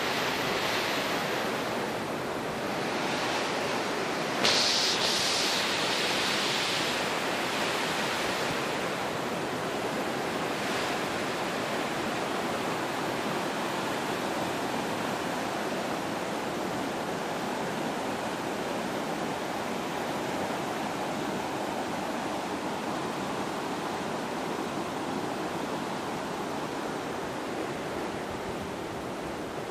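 Steady rush of a rocky stream flowing between boulders, with a brief louder hiss about four seconds in that fades over the following few seconds.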